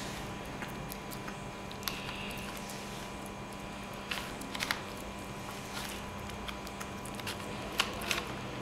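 Scattered light plastic clicks from a Rubik's cube being turned by hand, a handful over several seconds, over a steady low electrical hum.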